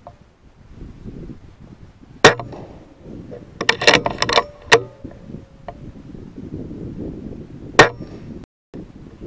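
Weihrauch HW100 PCP air rifle fired twice, about five and a half seconds apart, each shot a single sharp crack. Between the shots comes a quick run of metallic clicks, the side lever being cycled to load the next pellet.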